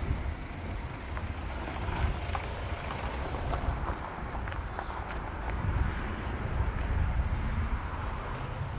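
Footsteps crunching on gravel as someone walks, with a steady low rumble of wind on the microphone.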